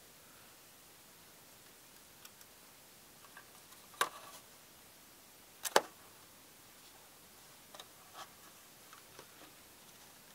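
Light ticks and taps of hands handling a printed circuit board and diodes, with two sharp clicks about four and six seconds in, the second the loudest.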